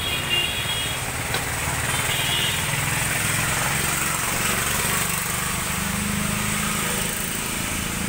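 Steady engine-like drone, a low hum under an even hiss, with brief faint high tones near the start and around two seconds in.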